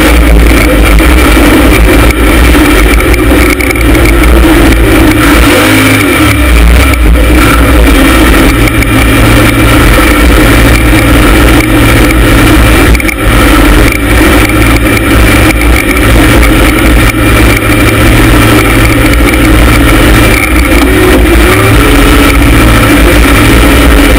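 LS V8 engine of a rock bouncer buggy running hard under throttle, its revs rising and falling as the buggy climbs, heard very loud from inside the open roll cage.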